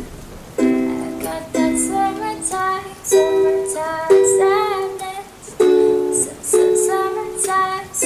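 Acoustic cover music with ukulele: a melody of held notes, some wavering in pitch, over light strummed accompaniment.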